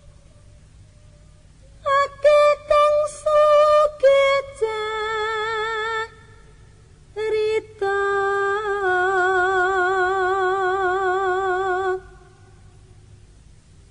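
A solo voice singing unaccompanied in a slow melody: a few short notes, then held notes with a wide, even vibrato, the longest lasting about four seconds, separated by short pauses.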